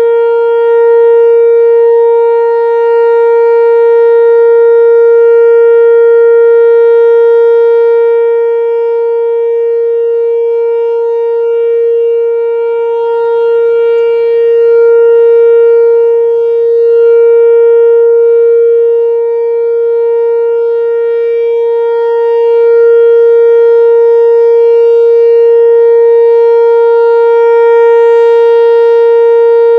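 A loud, sustained tone held at one steady pitch, with gentle swells in loudness and no rise or fall in pitch.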